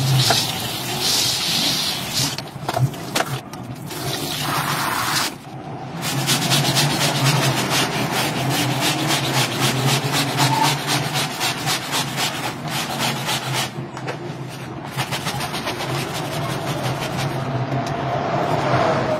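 Wet rug being scrubbed and rinsed: a motor hums steadily under rapid, even scrubbing and water noise. The sound cuts off abruptly and restarts about five seconds in and again about fourteen seconds in.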